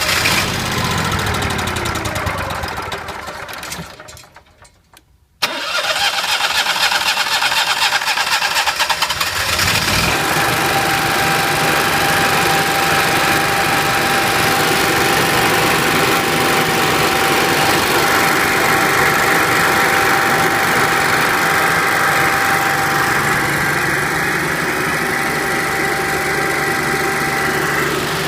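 Onan Marquis 7000 gasoline generator being cranked by its starter: it cranks for about four seconds, stops, cranks again, and catches about ten seconds in, then runs steadily with a steady whine over the engine note as it warms up.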